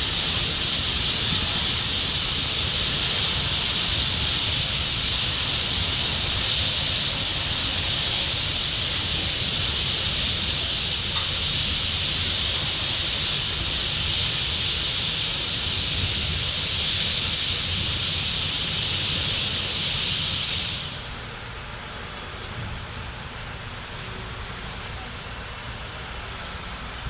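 LPG gas burners of a tractor-towed PTR 3800 flame weeder, burning with a loud, steady hiss over the low rumble of the tractor engine. About three quarters of the way through, the hiss stops abruptly and only the quieter engine rumble remains.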